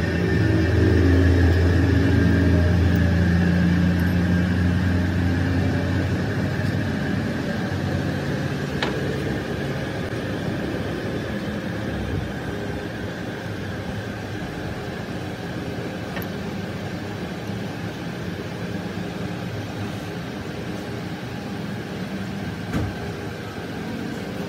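Lathe motor running with a steady low hum, louder for the first few seconds and then easing to a lower steady level.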